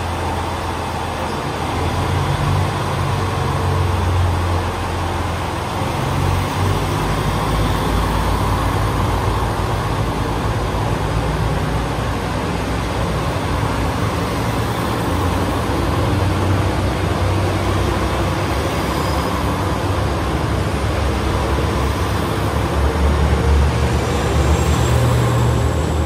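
Chizu Express HOT7000-series diesel railcar train running along a station platform: steady diesel engine drone with wheel and rail noise, the engine pitch shifting a little as it goes.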